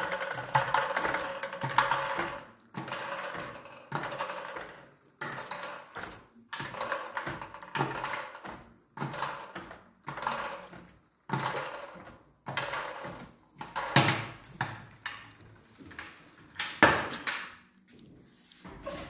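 Numbered plastic lottery balls clicking and clattering as they are handled and dropped one at a time into a lottery drum, about one every second, with two louder knocks near the end.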